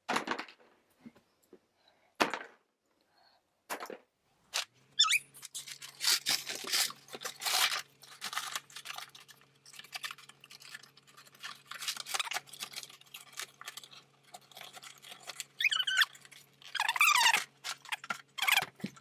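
Cardboard toy box and packaging being handled and shoved: irregular rustling, scraping and sharp knocks, with a couple of high squeaks near the end.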